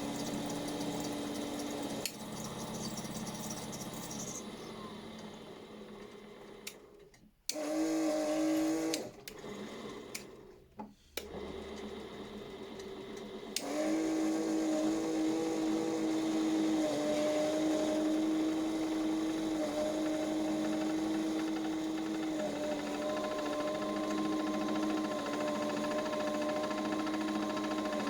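Miele washing machine spinning: a steady motor whine with hum from the drum. It dips away twice about a quarter of the way in, then comes back louder and steady from about halfway, and a higher tone joins near the end.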